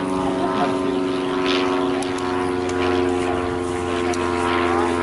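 A steady engine drone, running at constant speed with a hum of several even tones that does not rise or fall.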